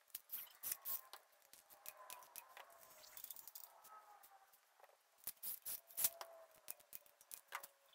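Light, irregular metallic clicks and taps of hand tools being handled around an engine on a stand, with no power tool running.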